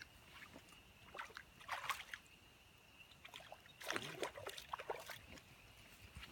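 Creek water splashing and sloshing in short spells, once around one to two seconds in and again, louder, around four to five seconds in.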